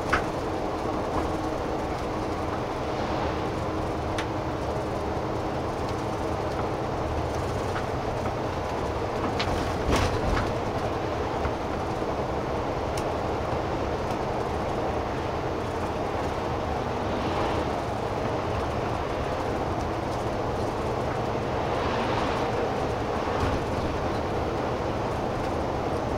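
Cabin noise of a diesel route bus on the move: a steady engine and road rumble, with a short clatter of knocks about ten seconds in as it goes over a bump.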